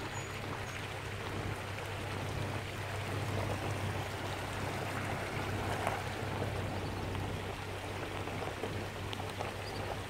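Shallow river water running over rocks, a steady rushing with an even low hum underneath.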